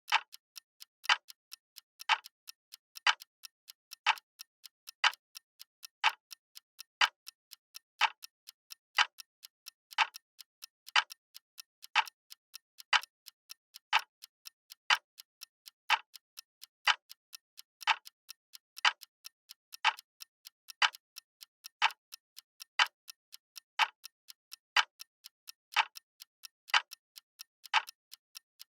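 Clock ticking sound effect for a countdown timer: a loud sharp tick once a second, with about three fainter ticks between each pair.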